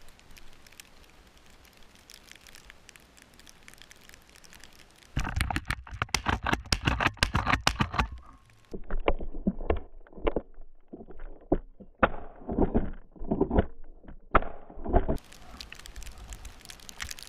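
Faint crackling, then from about five seconds in, loud crunching and brushing as someone pushes through deep fresh snow and snow-covered spruce boughs, with steps landing about twice a second.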